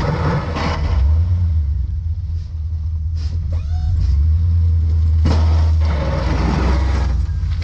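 Pickup truck with a Boss XT V-plow working, its engine giving a steady low rumble. The steel blade scrapes and pushes snow across the pavement in two noisy bursts, briefly about half a second in and again for over a second starting about five seconds in.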